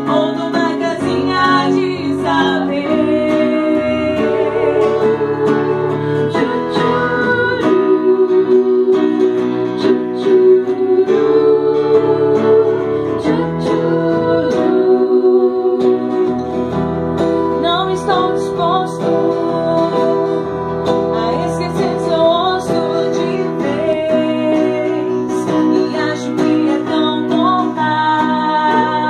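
Women singing a song into microphones over guitar accompaniment, with several voices together.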